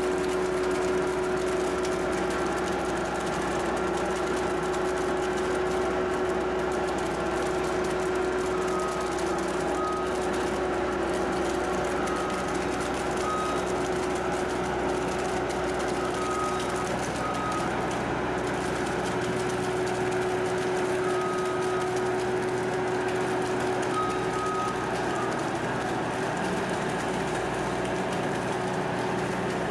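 Skid steer engine running steadily, with a reversing alarm beeping in short spells now and then.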